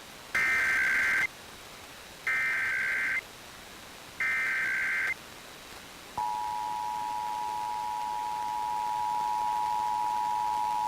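Emergency Alert System test signal: three short bursts of the SAME header's digital data warble, then about six seconds in the EAS two-tone attention signal starts and holds steady.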